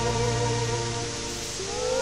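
Music: long held notes with a wavering vibrato over a steady low hum, then a new note slides upward near the end.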